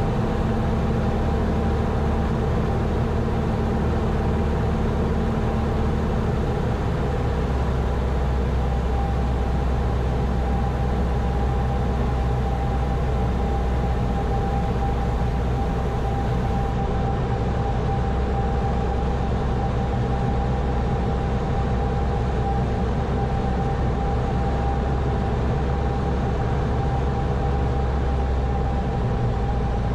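Steady drone of a Grumman AA-5 light aircraft's piston engine and propeller while slowing on final approach. The engine note changes slightly about six seconds in, when a lower tone drops away.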